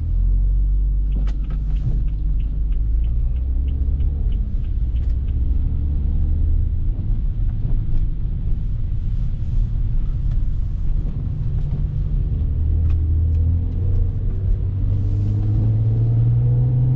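BMW F30 335i's N55 turbocharged straight-six running at low, steady cruise on a snowy road, heard from inside the cabin as a deep drone over tyre noise. The engine pitch climbs a little near the end, and a run of light, evenly spaced ticks sounds for a few seconds near the start.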